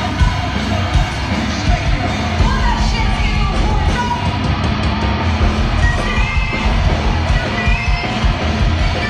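A live rock band playing loudly through the PA, heard from the crowd, with pounding drums under a female lead singer singing and yelling.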